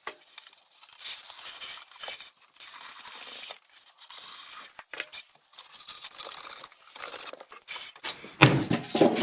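Foam board being marked and cut by hand: irregular scratchy scraping strokes with short pauses, then a louder clunk of the board being handled near the end.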